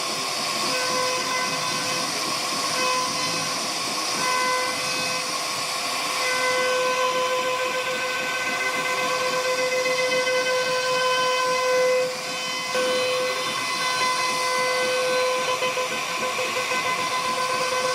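CNC router carving wood: a steady high whine from the spindle over a hissing cutting noise, with a brief drop in level about twelve seconds in.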